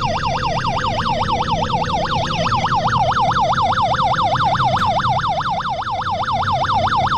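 Portable gas detector's carbon monoxide alarm sounding: a loud, rapid warble sweeping up and down about five times a second. It signals that the carbon monoxide concentration has exceeded the detector's alarm level.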